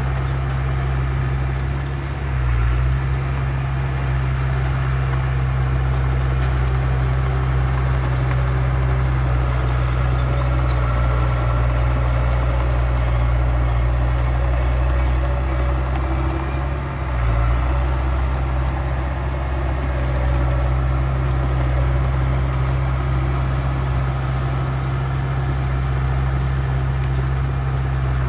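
Heavy diesel machinery engine running steadily with a deep low drone, which dips briefly twice: about two and a half seconds in and again about seventeen seconds in.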